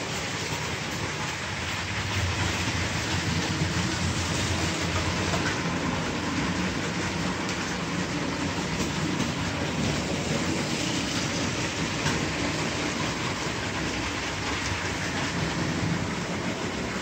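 Motorized LEGO trains, a Santa Fe locomotive and a tram, running on plastic LEGO track: a steady running noise of wheels and motors.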